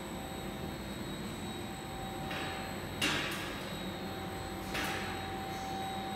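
Dust extractor unit's blower running with a steady whine. About three seconds in there is a sharp knock, with brief rushing noises just before it and again nearly two seconds later.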